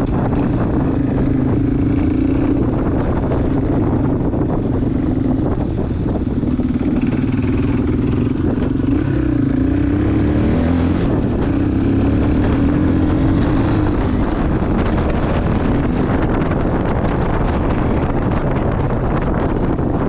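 Yamaha XT225's single-cylinder four-stroke engine running under way on a trail, at steady throttle with the pitch dipping and rising a little around the middle as the throttle is rolled off and back on.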